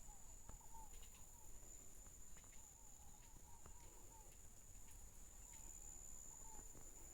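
Faint natural ambience: an insect's steady, high-pitched trill, with runs of short repeated chirping calls lower in pitch and a faint low rumble underneath.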